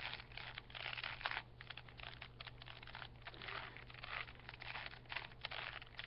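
A 3x3 Rubik's cube being turned rapidly in the hands: a run of quick, irregular plastic clicks and clacks as its layers are twisted.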